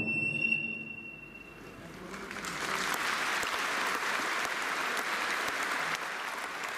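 A held high note on a Japanese transverse flute fades away in the first second. About two seconds in, an audience breaks into applause, which goes on steadily.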